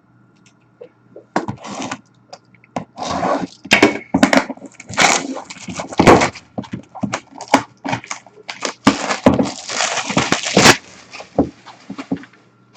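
Packaging of a sealed Leaf trading-card box being handled and opened: a long run of crackles, rustles, rips and small knocks of cardboard and wrapping. It is quiet for about the first second and a half, and busiest between about three and eleven seconds in.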